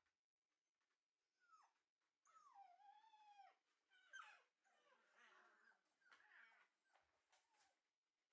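Faint whining and whimpering from a Shiba Inu puppy: a short falling whine about a second in, a longer wavering whine soon after, then several shorter, rougher whimpers.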